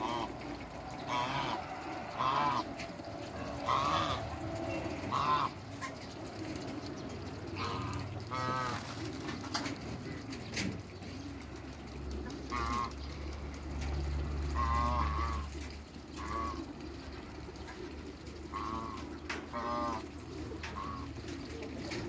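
Domestic geese honking, a dozen or so short calls scattered through, with a low rumble in the middle.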